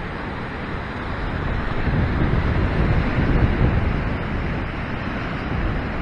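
Ocean surf breaking and washing against a rock ledge, with wind buffeting the microphone as a low rumble. The wash swells to its loudest about halfway through.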